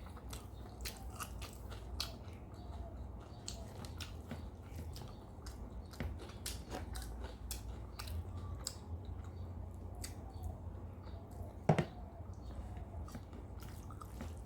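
Close-up mouth sounds of eating a rice meal with fried vegetables: chewing with frequent small wet clicks, smacks and crunches, and one louder knock near the end.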